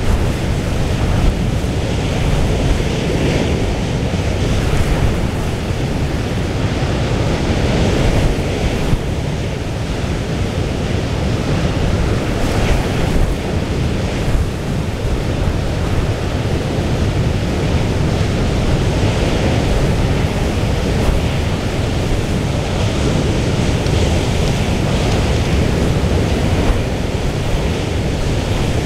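Storm wind blowing over the microphone as a steady low rumble, with the rush of a rough, whitecapped sea beneath it.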